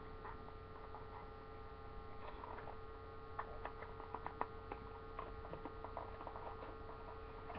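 Steady electrical hum with faint, scattered small clicks from a little toy-car box being handled and opened by hand.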